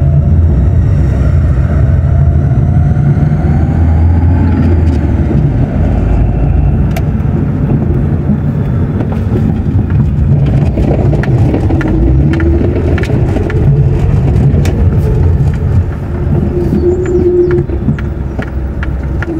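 Car engine and road noise heard from inside the cabin as the car moves slowly, the engine note rising over the first few seconds. Scattered light ticks come through in the second half.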